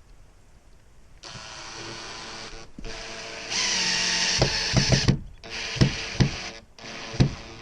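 Drill with a Phillips bit driving a screw: the motor whirs in four runs with brief stops between, with several sharp clicks in the later runs.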